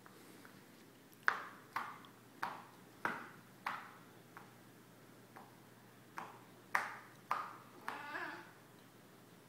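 Cats wrestling over a toy: a string of short, sharp sounds, about ten in two runs, each dying away quickly, and a brief wavering cat call about eight seconds in.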